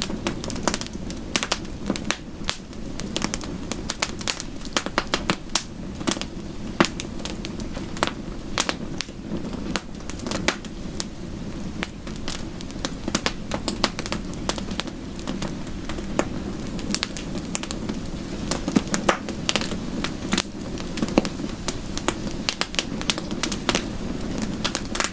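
Wood fire crackling with many irregular sharp pops over a steady low rush.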